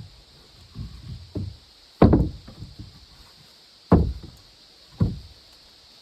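Heavy, irregular knocks of blows on wood: three lighter ones in the first second and a half, then three loud ones about 2, 4 and 5 seconds in.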